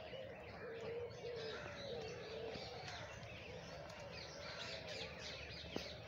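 A chorus of aviary birds: many small birds chirping rapidly, over a low, repeated wavering coo.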